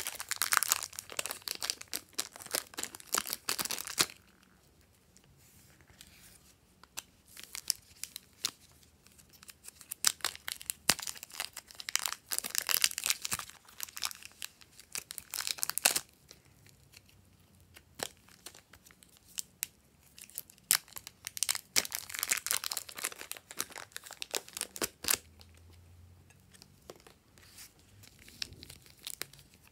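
Thin plastic wrappers crinkling and tearing as soft modelling clay is squeezed out of them, in several crackly bursts with quiet gaps between.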